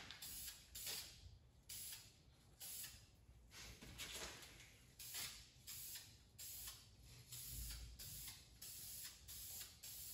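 Aerosol spray can of primer hissing in short bursts, about two a second, as a primer coat is sprayed onto a spoiler.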